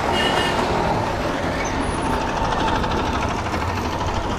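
Motorcycle engine running steadily as the bike moves slowly, with road noise.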